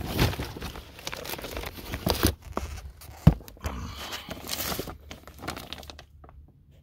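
Cardboard firework cake boxes and their packaging being handled: rustling, crinkling and scraping with many small clicks, and one sharp knock about three seconds in. The handling stops about six seconds in.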